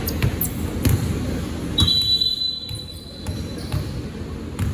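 A basketball bouncing on a gym floor in repeated thumps. About two seconds in, a single steady, shrill whistle blast lasts about a second, typical of a referee's whistle.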